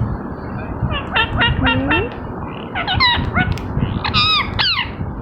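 Green Indian ringneck parakeet giving a run of quick, high chirps and squawky calls, several sweeping up and down in pitch, starting about a second in and loudest near the end. A steady low rumble of background noise runs underneath.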